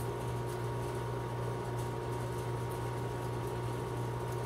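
Steady low machine hum with a thin steady whine above it, and a few faint light clicks of small steel pistol parts being handled.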